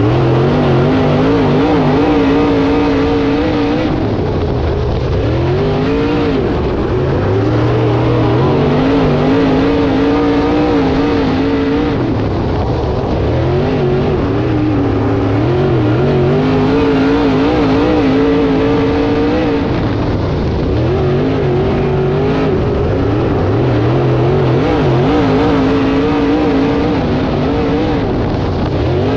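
Dirt-track Modified race car's engine at racing speed. Its pitch rises and falls in a repeating cycle of about four seconds as the throttle goes on and off around a short oval.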